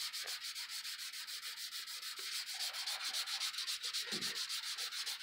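P500 dry sandpaper on a hand block rubbed back and forth over cured automotive clearcoat in quick, even strokes, about seven a second. This is dry-sanding a clearcoat run flat and taking out the 320-grit scratches.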